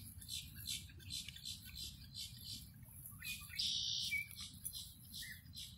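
Dusk chorus of small chirping creatures: rapid short high chirps, about four a second, with a half-second steady high buzz just past the middle, over a low steady rumble.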